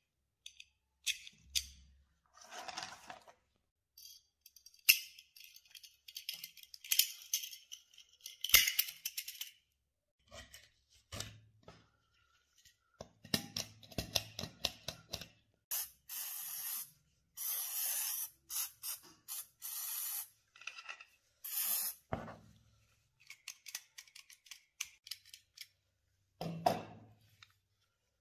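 Small steel parts of a Tokarev TT-33 pistol magazine clicking and scraping as they are fitted together by hand. About halfway through come several short hissing sprays from an aerosol can, a second or so each, with more clicks and scrapes around them.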